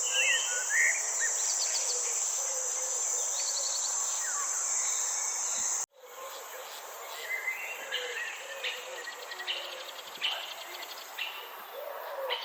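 Garden ambience: insects keep up a steady high-pitched drone while birds chirp and call. About six seconds in, the sound cuts out abruptly for an instant. It then resumes with busier birdsong and the insect drone fainter.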